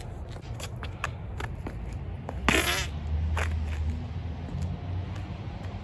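Wind rumbling on a phone microphone, with light scuffs of shoes on gritty pavement and one short, loud breathy burst about two and a half seconds in.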